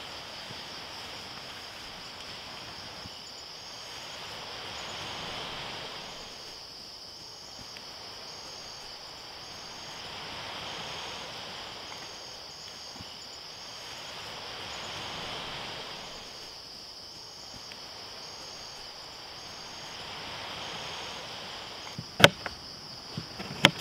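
Outdoor forest ambience: insects buzz steadily, with a regularly pulsing chirp above the buzz. Under it a soft rushing noise, like water or wind, swells and fades every few seconds. A sharp click comes near the end.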